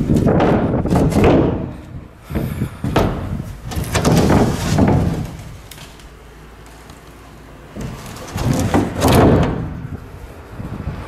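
Knocks and bumps of a fiberglass fish-hold hatch lid being opened and handled on a boat deck. They come in three loud spells, near the start, in the middle and near the end, with a quieter stretch between.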